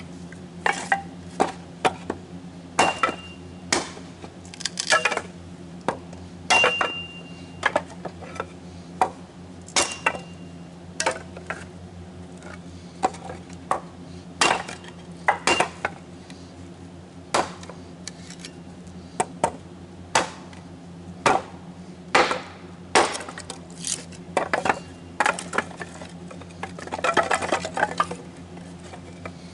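Wood being chopped into kindling: a string of sharp, irregular chops and wooden clatter about once a second, a few with a brief metallic ring, over a steady low hum.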